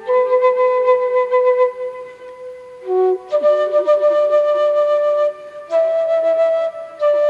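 Solo flute playing a slow melody of long held notes, each lasting a second or two, with a softer passage partway through.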